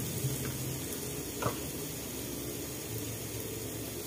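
Chilli paste and aromatics sizzling steadily in a wok, over a low hum, with one light knock about a second and a half in.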